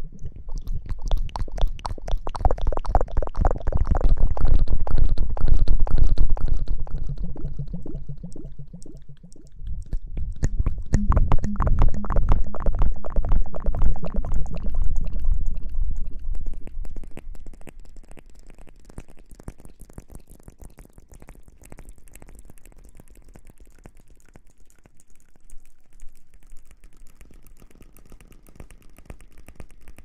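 Close-microphone ASMR crackling and rustling: a dense stream of fine crackles with a deep rumble from handling right at the microphone. It swells loud twice in the first half, then goes on much fainter.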